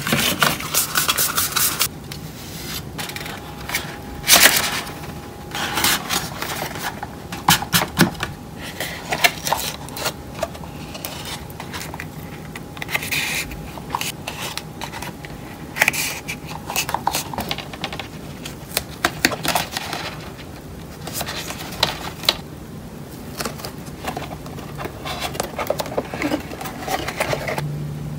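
A milk carton and a strip of corrugated cardboard handled by hand: the cardboard is rolled up tight and the carton's paperboard is folded and pressed. The result is irregular crinkling, scraping and tapping with short pauses between.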